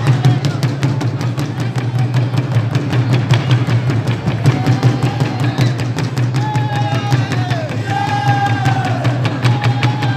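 Burundian drum troupe beating large drums with sticks in a fast, dense, driving rhythm. From about halfway through, voices chant long calls that fall off at the end of each one.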